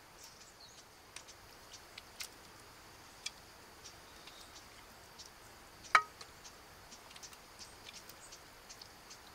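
Metal ladle working in a pot of soup and against a metal cup as soup is served: scattered light ticks and clinks, with one sharp ringing clink about six seconds in.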